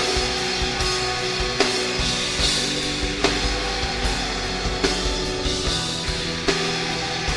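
Live rock band playing an instrumental passage with drum kit and electric guitars, no singing, with a sharp drum hit about every second and a half.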